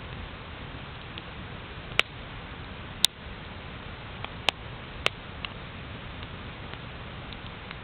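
Wood campfire crackling, the wood taken by the uploader for birch: a steady low rushing noise with scattered sharp pops, a few louder ones in the middle.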